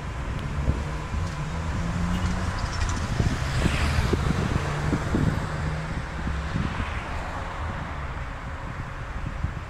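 Road traffic running past: a steady engine hum with a vehicle passing by about four seconds in.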